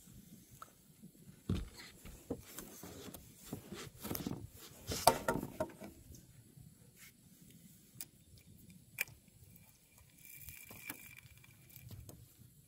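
Irregular clicks and knocks of fishing gear and a long fishing pole being handled in a boat, with a denser, louder rattling clatter about four to six seconds in.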